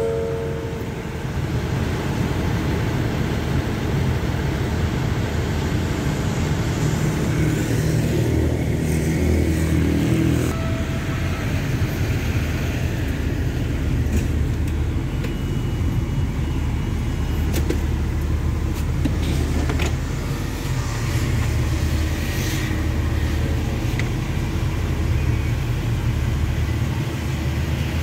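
Diesel locomotive of a passenger train running with a steady low rumble, with a few faint knocks from the train.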